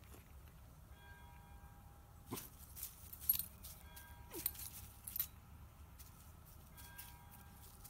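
Australian Shepherd puppy at play: a few brief yips with scuffling on frosty grass, about two seconds in and again around four to five seconds in.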